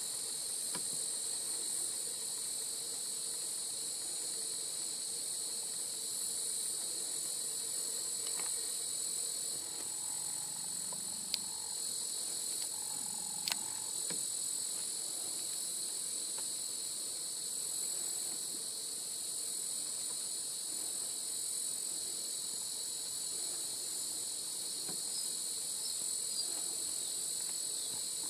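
Steady, high-pitched chorus of insects droning without a break, with two brief sharp clicks about eleven and thirteen and a half seconds in.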